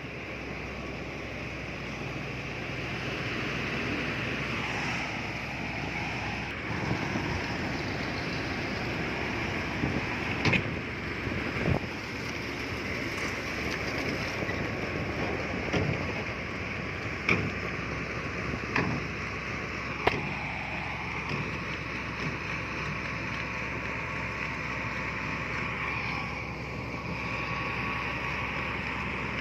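Heavy earthmoving machinery engine running steadily, with a handful of short sharp knocks from about a third of the way in to about two-thirds through.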